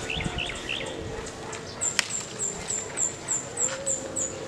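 Small birds chirping: a few quick chirps near the start, then a rapid series of about ten high, short notes, roughly four a second, in the second half. A single sharp click sounds about two seconds in.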